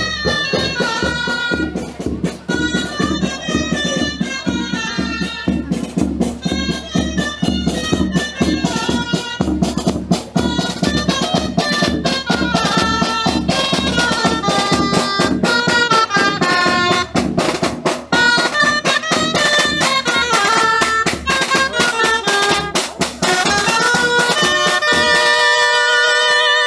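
A dulzaina (Castilian shawm) playing a folk dance tune over steady beats on a snare drum, ending on a long held note.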